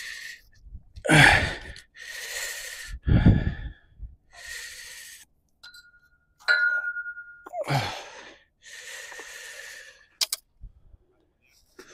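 A man breathing hard in a run of sighs and gasps, with a grunt or two, as he hauls a drop net holding a thornback ray up over a metal railing. A short steady high tone sounds about six and a half seconds in, and a sharp click comes near the end.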